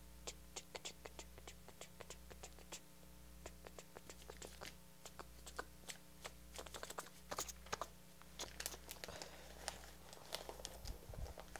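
Faint handling of paper on a countertop: scattered light clicks and rustles as a sheet is slid around and a small plush toy is set on it, then a denser papery rustle near the end as the sheet is rolled up around the toy. A low steady hum runs underneath.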